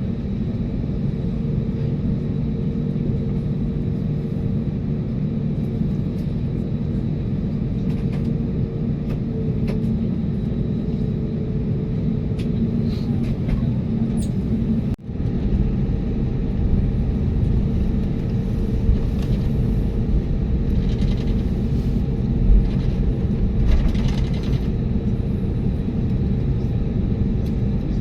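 Cabin rumble of an Airbus A320neo taxiing, its CFM LEAP-1A engines running at low power with a faint steady hum over the rumble. The sound drops out briefly about halfway, and there are two light thumps a few seconds before the end.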